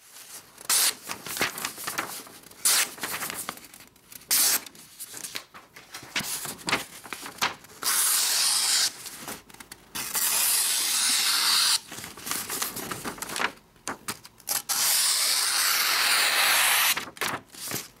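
The very sharp new recurve blade of a Kizer Tangram Rumble folding knife, in Acuto 440 steel, slicing through a sheet of paper. It starts as a run of short cuts, then several longer steady slices of a second or two each.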